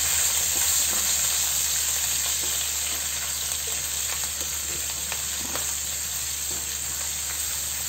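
Hot oil sizzling in a non-stick frying pan as a tadka of cumin, chillies, ginger-garlic paste and curry leaves fries, with a spatula stirring through it and scraping lightly on the pan. The sizzle eases a little over the few seconds.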